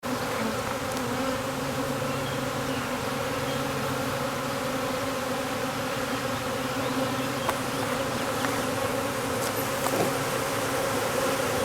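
A swarm of honeybees buzzing, a steady, dense hum of many wingbeats. The bees are worked up as they settle into a nucleus hive box.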